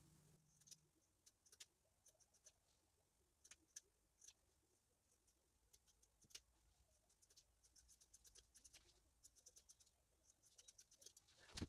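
Scissors snipping through tulle and lace skirt fabric: a run of faint, irregular short snips, with one louder click near the end.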